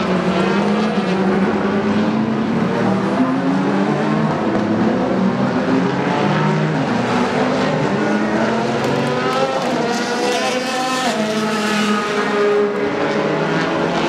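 Endurance prototype race cars' engines at racing speed, several overlapping, revving up and down through gear changes as they brake for and power out of corners.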